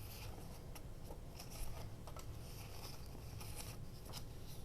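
Soft rustling and light clicks of paper scraps being handled and sorted by hand, over a faint steady low hum.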